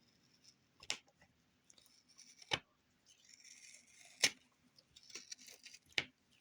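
Books being handled: four sharp clicks about a second and a half apart, with light paper-like rustling between them.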